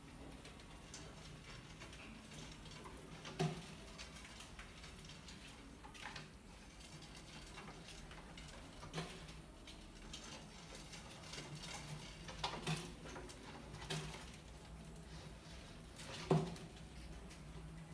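Mice scrabbling on a plastic pipe and wire mesh, with scattered sharp knocks and clicks as they land against the plastic pipe and glass tank. The loudest knock comes near the end. A faint steady hum runs underneath.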